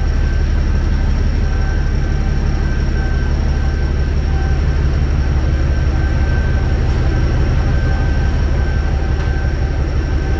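A heavy engine idling: a steady low rumble with a faint constant high whine above it.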